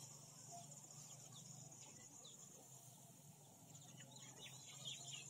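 Faint rural ambience: a steady high insect drone, with a quick run of short bird chirps about four seconds in.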